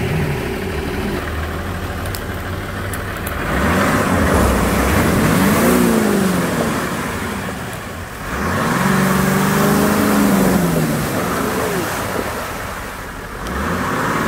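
Toyota Land Cruiser 80-series SUV's engine revving as it drives through deep muddy ruts, rising and falling in two long surges and climbing again near the end.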